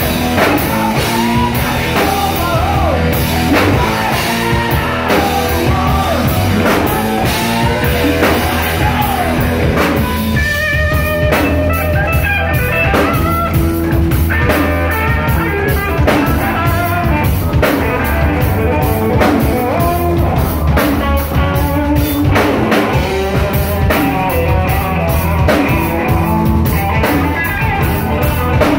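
Live rock band playing loud: electric guitar, electric bass and a drum kit with cymbals, with singing over the top.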